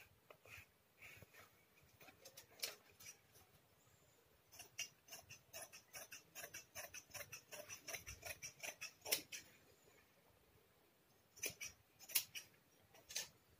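Fabric scissors snipping through folded cloth: a few scattered snips, then a steady run of short cuts at about four a second, then a few more snips near the end.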